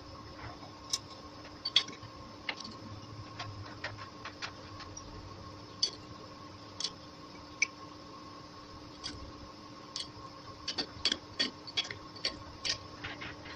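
Scattered sharp metallic clicks and clinks as a lathe cutting tool is set in the four-way tool post and its bolts are worked with a wrench. The clicks come closer together in the last few seconds, over a faint steady hum.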